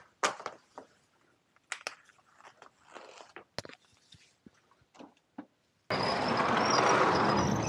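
A few scattered clicks and knocks, then about six seconds in a wooden up-and-over garage door is pulled down, a loud rumbling slide with a high, wavering squeak from its mechanism.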